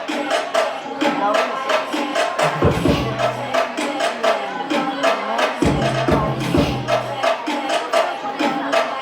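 Music with a steady beat of quick percussion hits, about four a second, and a low bass note that comes back every three seconds or so.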